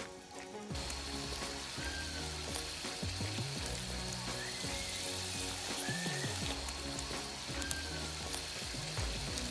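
Wood fire crackling and hissing, split logs burning down to glowing embers on a steel grate in a steel fire pit, with a dense hiss and scattered sharp pops; it comes in about a second in, over quieter background music.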